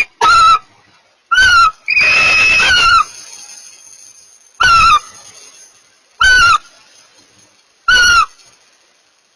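Barn owls calling: five short, high calls, each rising then falling in pitch and spaced one to two seconds apart, and one longer held call about two seconds in.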